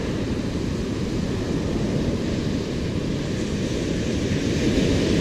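Steady rumble of wind buffeting the microphone over the wash of breaking ocean surf.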